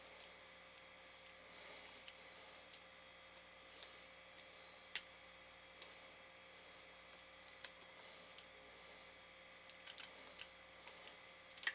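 Faint, irregular metal clicks of a lock pick and tension wrench working the pin tumblers of a small CCL cabinet lock, scattered single ticks and short clusters, without the lock opening.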